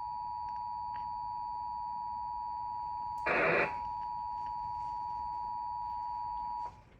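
Emergency Alert System attention signal played through a Samsung TV's speaker: two steady tones at about 853 and 960 Hz sounding together, announcing a tornado warning. About three seconds in, a short loud burst of noise briefly covers it, and the tone cuts off shortly before the end.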